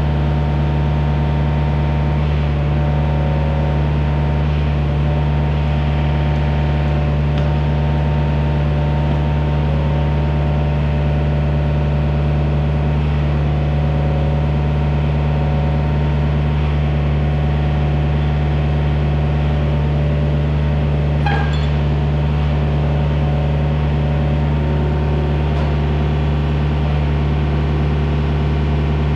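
Excavator engine running steadily at a constant speed, with a brief metallic click about two-thirds of the way through.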